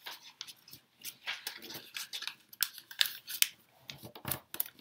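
A sheet of origami paper being folded and creased by hand, making a quick series of crisp crinkles and rustles.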